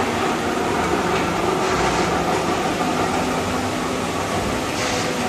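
Tyre buffing machine running, spinning a 12.00-24 truck tyre on its expanding chuck: a steady mechanical hum with a short hiss near the end.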